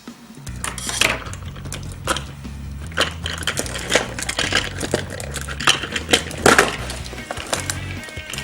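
Quick light clicks and clatters of hard plastic toy pieces being handled, over background music.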